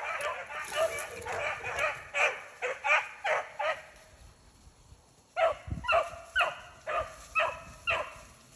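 Beagles barking and baying on a rabbit's scent: a run of short, pitched barks at about two to three a second, a pause of about a second just past the middle, then another steady run of barks.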